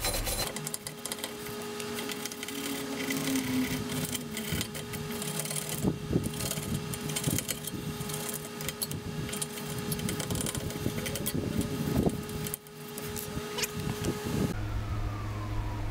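Hand brush scrubbed rapidly back and forth over the rusty wheel hub face of a Honda S2000, a scratchy rasping of bristles on rusted metal, cleaning the hub before the new caliper and rotor go on. The scrubbing stops shortly before the end.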